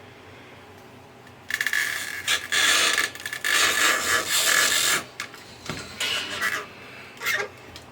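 Scraping and rubbing at close range, starting about a second and a half in and running for several seconds, then a few shorter scrapes near the end.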